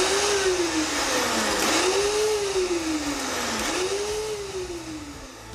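Vitamix 5200 blender pulsed on a thick, dry load of nuts and dried figs. Three times, about two seconds apart, the motor whines up fast and winds back down more slowly as it chops the mix.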